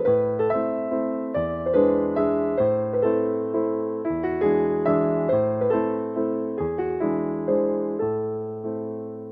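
Background piano music: gentle chords and a melody, with new chords struck every couple of seconds, fading away near the end.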